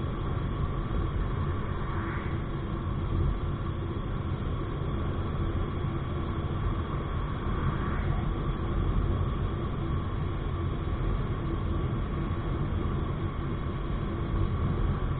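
Motorcycle riding at a steady speed: engine running under constant wind and road noise, with a brief swell about eight seconds in as an oncoming car passes.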